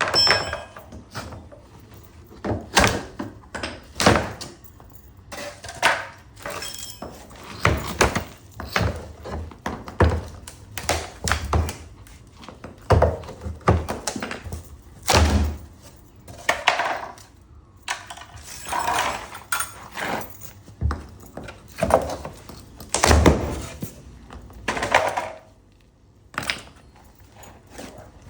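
Laminate floorboards being ripped up: a run of irregular thuds, knocks and cracks as boards are struck, pried loose and dropped, some of them drawn out to about a second.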